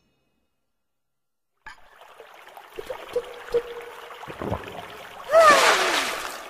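A sound effect: after a silent start, a hiss with scattered clicks and a brief steady tone begins about a second and a half in, then a loud burst of noise with a falling tone near the end.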